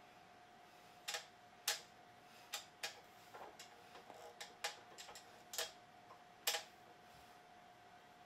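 About a dozen sharp, irregular clicks and taps of small parts on a keyboard stand's column as the carry-handle fittings are worked by hand; one fitting's screw is stuck and will not slide along its track.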